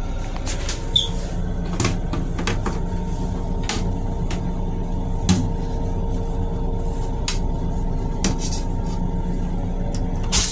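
Steady hum of an M7 electric railcar heard inside its small restroom: a low rumble with a few faint steady tones, dotted with light clicks and rattles. A loud hiss sets in right at the end.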